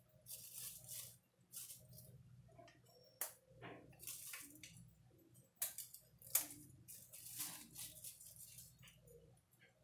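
Thin plastic bag rustling and crinkling in irregular bursts as hands work inside it, over a faint low hum.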